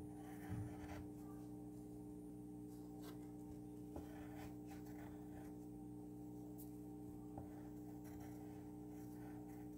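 Pencil scratching faintly on paper as a drawing is coloured in, with a soft bump about half a second in. A steady low hum runs underneath.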